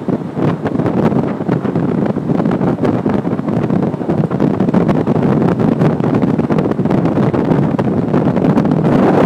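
Wind rushing and buffeting over the microphone aboard a fast-running flex boat, over the steady noise of the boat's motor and hull on the water.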